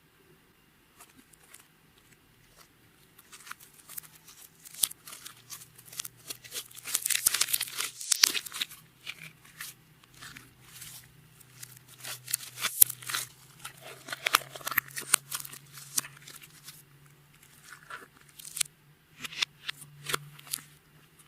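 Clear slime being squeezed and stretched by hand, giving off irregular runs of sticky crackling and popping clicks that come in bursts with short pauses between them.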